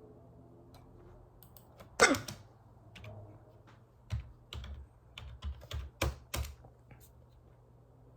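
A single hiccup about two seconds in, a sharp catch of breath with a short falling voiced 'hic', the loudest sound here. It is followed by a run of a few sharp clicks and knocks between about four and six and a half seconds in.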